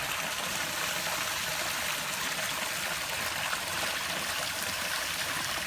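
Backyard garden waterfall and stream splashing and running over rocks, a steady rushing of water.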